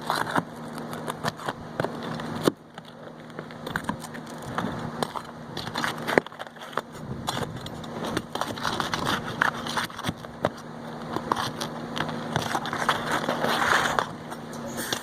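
Asphalt roofing shingles being cut and pried loose: scraping, crackling and tearing with many sharp clicks and knocks of the blade and bar against the shingles.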